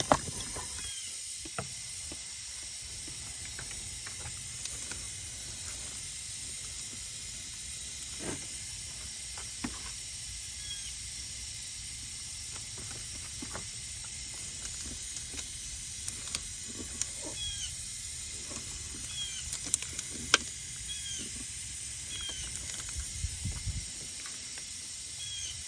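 Steady hiss of pressurized air escaping from a leak in a Cadillac ATS cooling system under a pressure test, with scattered light clicks and knocks.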